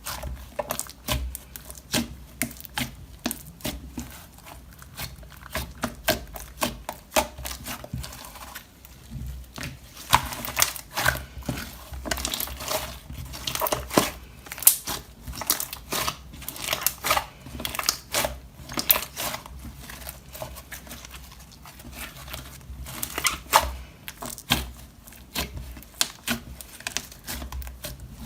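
Slime being squeezed, folded and stretched by hand, giving a dense run of irregular sticky clicks, pops and crackles that grow busier about ten seconds in.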